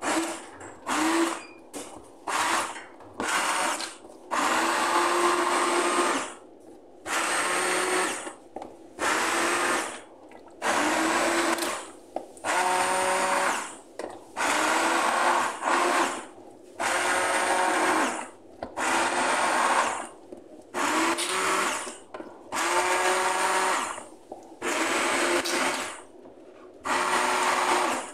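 Braun stick blender puréeing a tomato sauce in a pan, switched on and off over and over in bursts of mostly one to two seconds. Each burst starts with a rising whine as the motor spins up.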